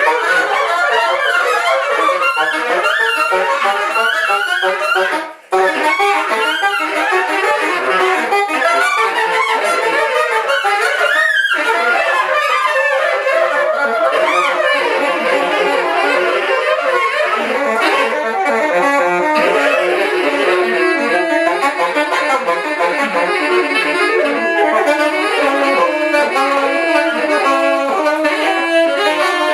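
Alto and tenor saxophones playing a live duet, their lines overlapping densely. The sound cuts out for an instant about five seconds in. In the second half the lower horn repeats a short figure under the other's line.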